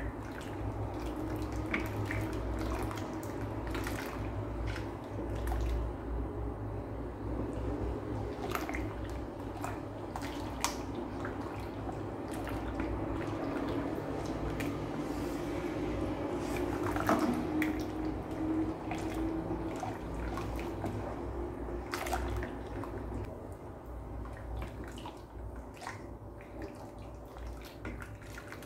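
Wooden spatula stirring a liquid gelatin mixture in a rice cooker's inner pot: wet sloshing and swirling, with scattered short knocks and scrapes of the spatula against the pot.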